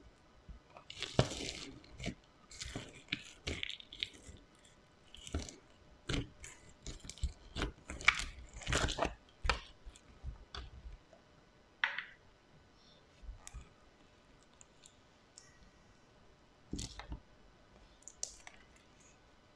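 Hands squishing and pressing a crunchy slime packed with add-ons, giving irregular clusters of crackles, pops and squishes with short pauses between.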